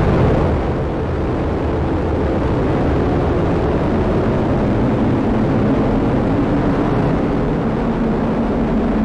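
Atlas V rocket climbing just after liftoff, its main engine and two solid rocket boosters burning: a loud, steady low rumble.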